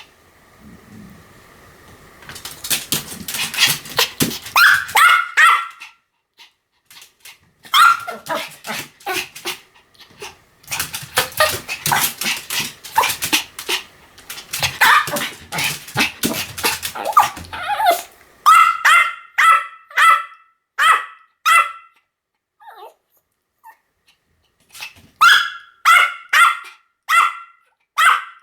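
Pomeranian barking in high-pitched runs of rapid yaps, several barks a second, with short lulls between the runs.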